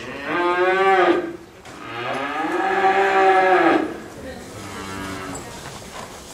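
Cattle mooing: two loud, drawn-out calls, the second lasting about two seconds, then a fainter third call near the end.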